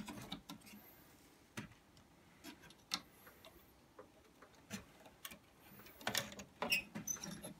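Light, scattered clicks and taps as a circuit board is handled and seated into the plastic case of a Victor Clavia RC-G15MD boombox. The clicks come singly a second or so apart, then more quickly near the end.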